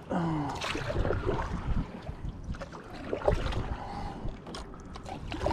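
Canoe paddling: paddle strokes and water moving along the hull, with small knocks and wind buffeting the microphone. A brief low falling tone sounds just after the start.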